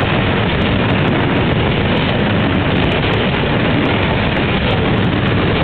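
Freight train's covered grain hopper wagons rolling past on the track: a steady rumble of steel wheels on the rails.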